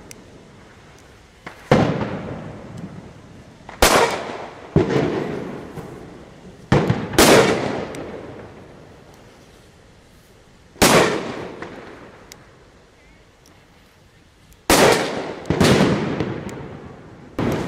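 Trueno Champion No. 3 Spanish firecrackers exploding one after another: about nine sharp, loud bangs at irregular intervals, a few close together, each trailing off in a long echo.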